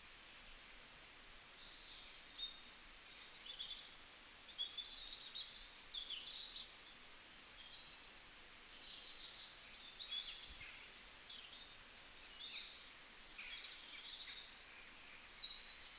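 Faint birdsong: many small birds chirping and twittering in quick high calls and short glides, over a soft steady hiss.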